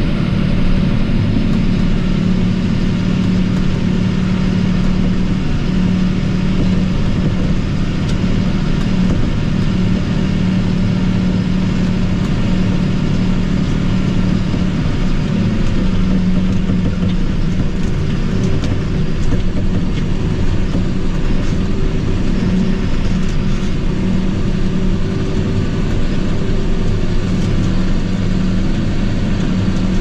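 John Deere tractor's diesel engine running steadily under way, its pitch and loudness holding even, heard from inside the cab.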